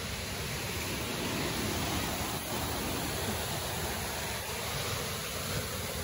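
Steady rush of falling water from a waterfall, an even, unbroken hiss.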